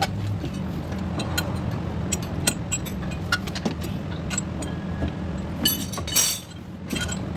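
A steady low mechanical hum, like a running motor, with many light metallic clinks and taps scattered through it, thickest about six seconds in.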